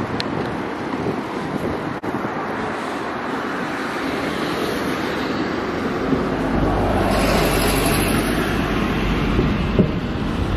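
Road traffic passing on the bridge, a steady noise of engines and tyres. About two-thirds of the way through, a heavy vehicle goes by with a low rumble.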